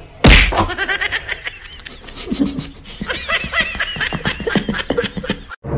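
A sudden thump about a quarter of a second in, then a person laughing in quick, high-pitched bursts.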